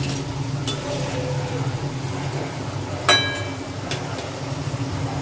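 A metal slotted spoon clinks against steel cookware while palm pithas deep-fry in oil. One sharp, ringing clink comes about three seconds in, with lighter taps near the start and about a second later, over a steady low hum.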